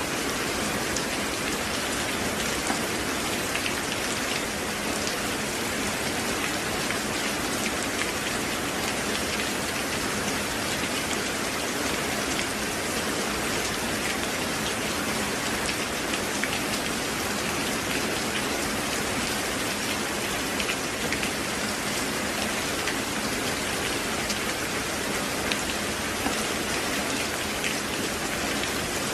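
Steady rain falling, an even hiss with many small, sharp drop ticks, unchanging throughout.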